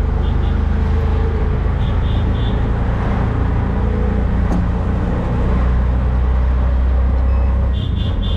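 Engine of a hired vehicle running under load on a climb, heard from on board as a steady low hum that grows stronger for a few seconds before easing near the end. Short clusters of quick high beeps sound near the start, around two seconds in, and again near the end.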